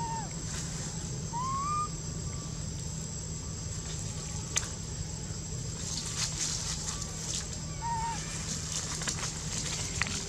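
Outdoor forest ambience with a steady low hum and soft rustles in dry leaf litter. Three short whistled calls come through, one at the start, a rising one a second or so later, and a last one about eight seconds in.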